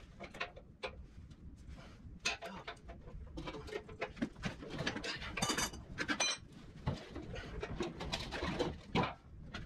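Short clinks, knocks and scrapes of a wrench working the hydraulic pump's high-pressure line fitting loose on a Massey Ferguson TO-35 tractor, with a brief high squeak about five and a half seconds in.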